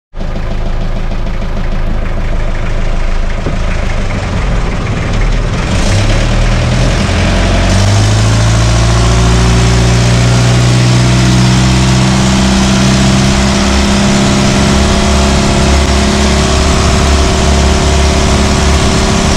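Outrigger boat's engine idling with an uneven low chug, then revved up about six seconds in and held at a steady run as the boat gets underway.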